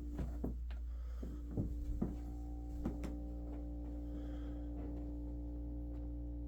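An odd steady humming or buzzing noise: a low drone with several fixed tones above it, one more tone joining about two seconds in. A few clicks or knocks come in the first three seconds, then the hum goes on alone.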